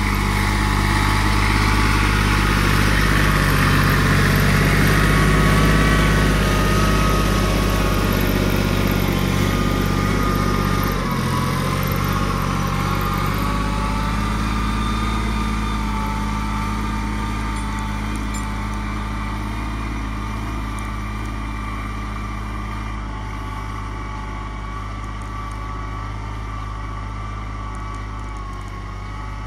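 Kubota GB 200 compact tractor's diesel engine running steadily under load while pulling a plough, getting slowly quieter over the second half as it moves away.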